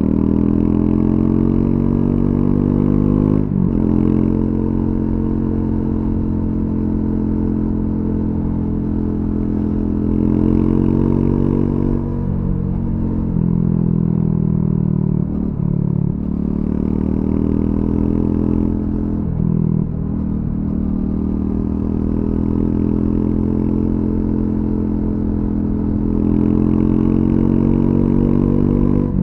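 Triumph Scrambler 400X single-cylinder engine through its stock exhaust, ridden on the road. The revs rise and fall as it accelerates and slows, with short drops in revs a few seconds in and several more around the middle.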